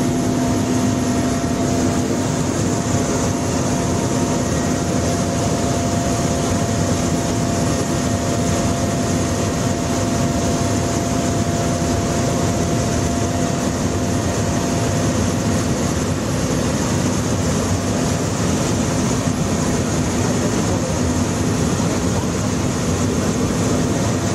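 Helicopter in flight heard from inside the cockpit: a loud, steady mix of engine and rotor noise, an even hiss over a constant low hum, with no change in pace.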